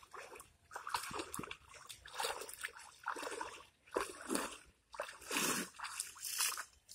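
Legs wading through knee-deep pond water, a slosh and splash with each stride, about one a second.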